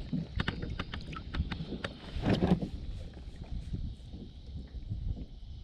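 Irregular knocks and clatter of handling aboard a fishing kayak, over a low rumble and a steady high hiss, with a louder cluster of knocks about halfway through.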